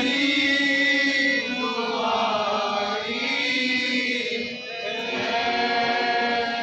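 Live singing in long, chant-like held notes, accompanied by a harmonium.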